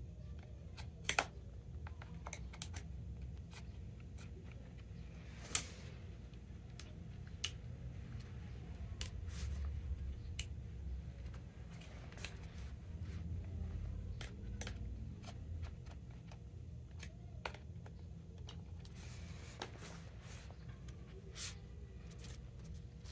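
Scattered small clicks and taps of a plastic grommet strip being worked with an awl and pressed into a tennis racket frame, over low rubbing and handling noise. The sharpest clicks come about a second in and just before six seconds.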